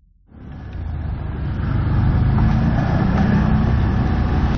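BRP Can-Am ATV engine running under way, heard from on board, with a broad rushing noise over it. It cuts in abruptly just after the start and builds to full loudness over about two seconds, then holds steady.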